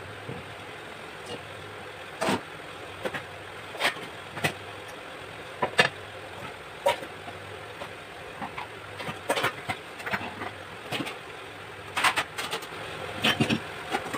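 Stainless steel kitchen vessels and plates clanking as they are handled and set down, more than a dozen sharp knocks at irregular intervals over a steady background hum.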